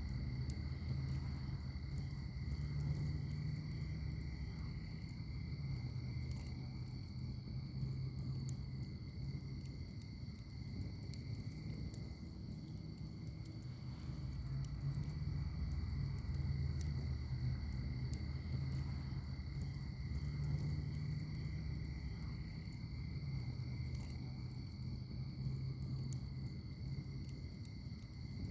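Wood fire burning in a fire pit, with a low rumble and light, scattered crackles. A steady high insect trill, typical of crickets, runs over it.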